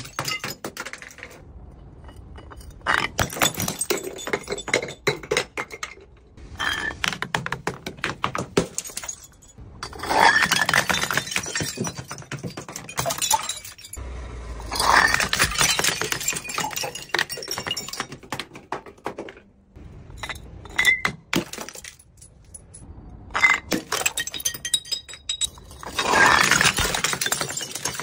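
Liquid-filled glass bottles tumbling down concrete steps and shattering, with rapid clattering knocks and the tinkle of scattering glass shards. It comes in several separate runs of breaking with short pauses between them.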